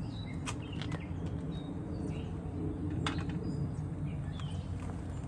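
Outdoor background: a steady low hum with faint bird chirps and a few light clicks.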